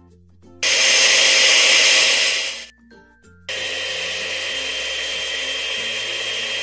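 Electric kitchen blender running in two goes: a loud run of about two seconds, a short stop, then a second, slightly quieter run of about three seconds, blending a thick rice, aloe vera and cornstarch mixture.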